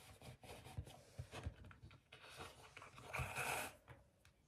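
Faint handling sounds of craft string and hands on a wooden tabletop as the string is pulled through wooden beads: scattered soft taps and rustles, with a longer scratchy rustle about three seconds in.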